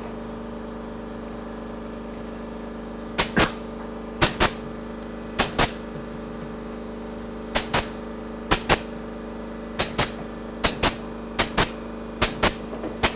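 Pneumatic upholstery staple gun stapling padding onto a bed foundation. About ten shots at uneven intervals, each a sharp double snap. A steady machine hum runs underneath.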